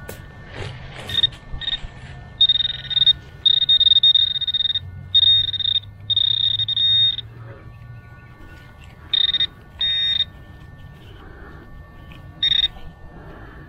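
Handheld metal-detector pinpointer sounding its high-pitched buzzing alert in bursts as it is probed through loose soil, some brief and some about a second long: the sign of a metal target, here a coin, close to its tip.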